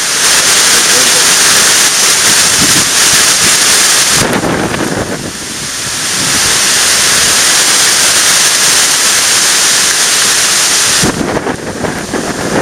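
Hurricane-force wind and driving rain from the back side of Hurricane Sandy, just after the eye has passed. The wind blows hard in gusts, easing briefly about four seconds in and building again, then buffets the microphone near the end.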